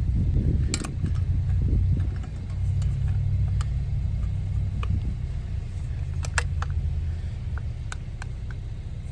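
A vehicle engine running steadily at idle, with scattered short, sharp clicks and knocks over it.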